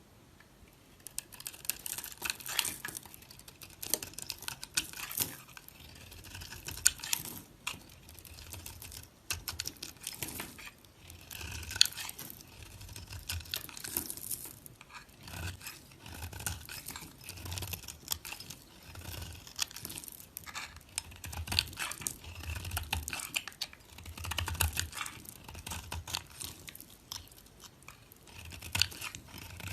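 A knife cutting and carving soap, starting about a second in: a dense, irregular run of crisp crunching and scraping strokes with soft low thuds beneath them.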